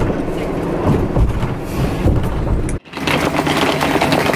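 Road noise inside a moving vehicle, then, after a sudden cut, a wheeled suitcase clattering steadily as it is rolled over brick paving.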